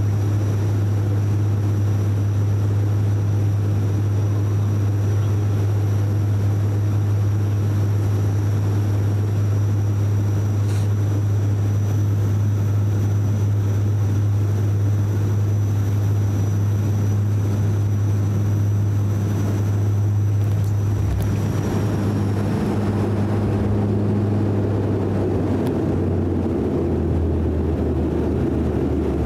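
Cabin noise of a De Havilland Canada Dash 8 Q400 turboprop on final approach: a steady, deep propeller drone with a faint high whine above it. About two-thirds of the way through, the aircraft touches down. The whine fades, a louder rushing rumble of the runway roll builds, and the drone drops slightly in pitch as the aircraft slows.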